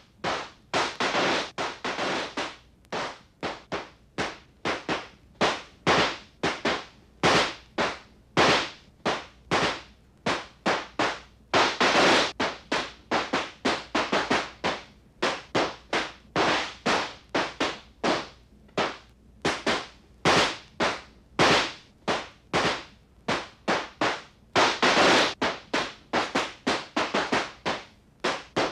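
Firecrackers going off in a long irregular string of sharp bangs, several a second, with denser rapid runs of bangs about twelve seconds in and again near twenty-five seconds.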